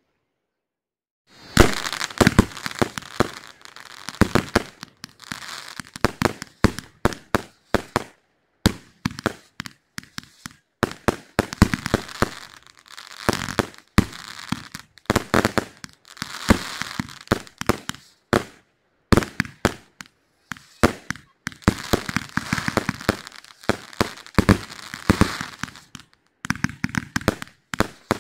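Aerial fireworks display: a fast, irregular string of shell bursts going off one after another, with crackling between the bangs. It starts about a second and a half in.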